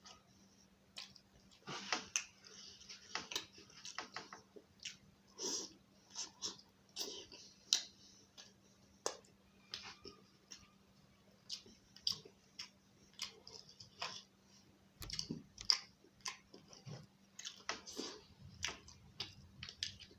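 Close-up chewing and wet mouth sounds of someone eating roti with chicken and egg curry: irregular smacks and clicks, a few a second.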